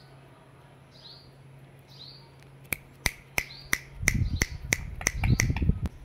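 Faint short falling chirps of Indian ringneck parakeets about once a second. Then a run of sharp clicks, about three a second and quickening, with a low rumble under the last two seconds.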